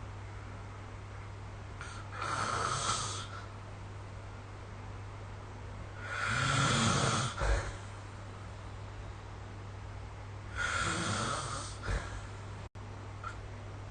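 A sleeping person snoring: three snores about four seconds apart, each lasting a second or so, over a steady low hum.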